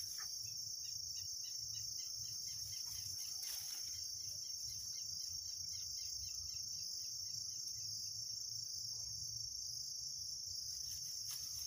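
Insects trilling in a steady, high-pitched chorus, with a second, pulsing call during the first half.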